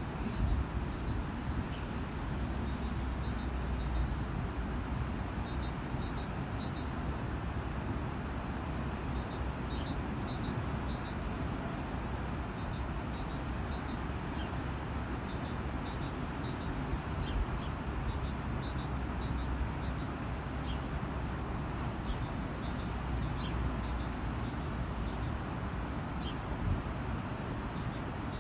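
Small birds chirping in short, high calls scattered every second or so, over a steady low rumble of outdoor background noise.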